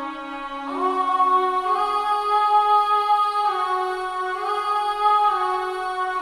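Slow, sustained pad chords from the Death Piano Kontakt library's E-Bow string pad preset. Each chord is held and then glides into the next about every second or two.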